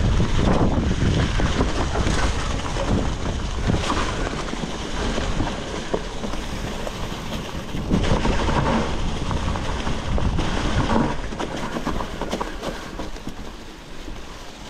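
Hardtail mountain bike rolling fast down a singletrack covered in dry leaves: wind rushing over the camera microphone, tyres crunching through the leaves, and short rattles and knocks from the bike over bumps. It eases off a little near the end.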